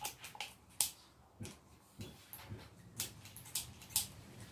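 A series of sharp clicks, irregular at about two a second, with no motor starting: the dead angle grinder being handled and its switch worked.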